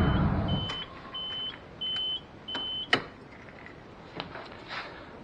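The RB20DET engine's hum dies away as it is switched off, then a car's electronic warning chime sounds five short, evenly spaced high beeps at one pitch, with a few light clicks.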